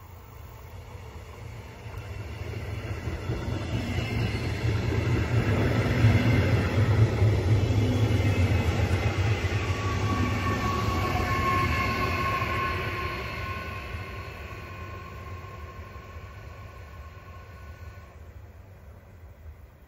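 Electric regional push-pull train of red double-deck coaches passing on the track: a rumble of wheels on the rails that builds, holds loudly through the middle, then fades away. A steady high whine joins about halfway through and dies out as the train recedes.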